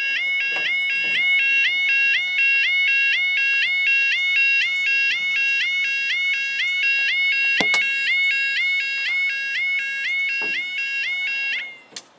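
UK level crossing two-tone yodel alarm warbling loudly and steadily, about two and a half cycles a second, while the barriers lower; it cuts off suddenly near the end as the barriers come fully down. A few sharp knocks sound through it, the loudest about two-thirds of the way in.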